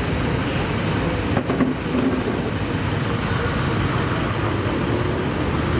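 Street traffic: a steady rumble of passing motor vehicles, with a short knock about a second and a half in.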